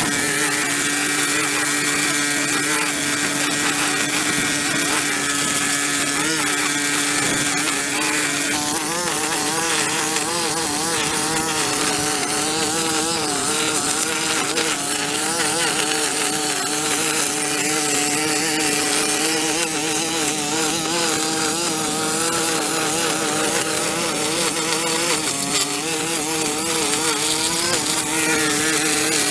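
Small petrol engine of a handheld power tool running at high speed. Its pitch is steady at first, then wavers up and down from about a third of the way in.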